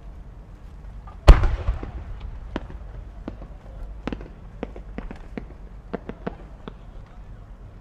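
Large aerial firework shell: one loud boom about a second in that echoes out, then scattered small sharp pops and cracks over the next several seconds.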